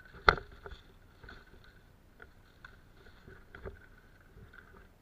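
Footsteps and brushing through dense vegetation on a dirt trail, a string of irregular soft knocks, with one sharp loud click near the start.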